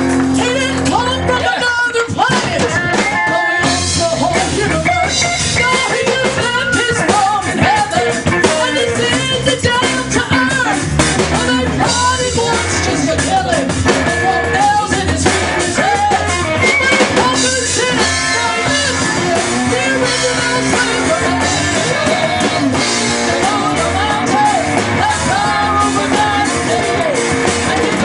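Live gospel band playing a song, with singing into microphones over electric guitars, bass, keyboard and a drum kit.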